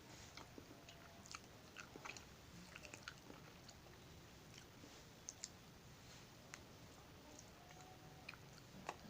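Faint close-up chewing of a soft chocolate donut with cheese: scattered small wet mouth clicks and smacks at an irregular pace over a low hiss.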